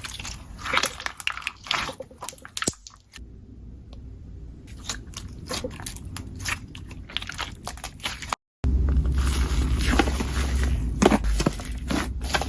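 Slime being squeezed and pressed by hand, making a dense run of crackling clicks and wet squishes. There is a brief drop-out about eight seconds in, after which the sound is louder.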